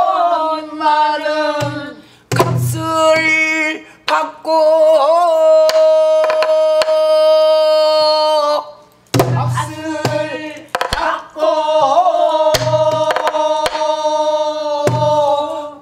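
A woman singing pansori in long, wavering held notes, one held for about four seconds in the middle, accompanying herself on a buk barrel drum. The drum gives about five deep thuds and sharp stick clicks on its wooden shell.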